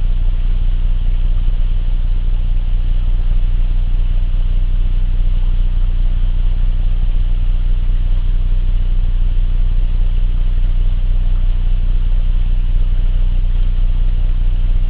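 Steady low hum of a running engine, unchanging throughout, with a hiss over it.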